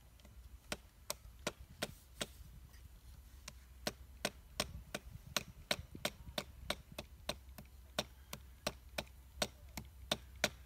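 A small knife chopping at wood against a log: sharp chops, a few scattered ones at first, then a steady run of about three a second.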